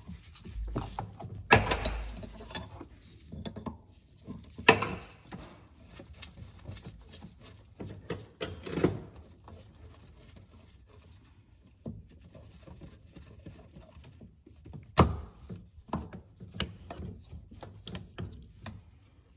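A wrench working the 18 mm hydraulic line fitting on a Hydro-Boost brake booster: scattered clicks and knocks of tool and line against metal. Three sharper knocks stand out, about a second and a half in, near five seconds and about fifteen seconds in.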